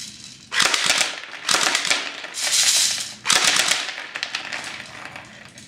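Airsoft gun firing on full auto in about four short bursts of rapid shots, starting about half a second in.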